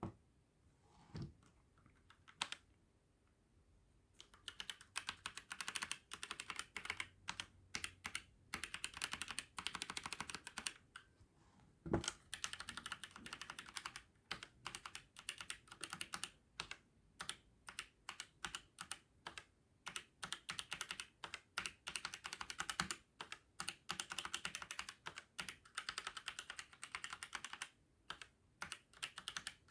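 Trust GXT 865 Asta mechanical keyboard with red switches being typed on: a few separate keystrokes, then fast continuous typing from about four seconds in, broken by short pauses, with one louder key thump about twelve seconds in.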